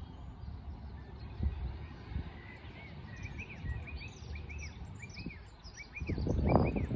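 A small bird chirping over and over, a short arched two-part note about twice a second, over a steady low rumble of wind on the microphone; a louder rush of noise comes near the end.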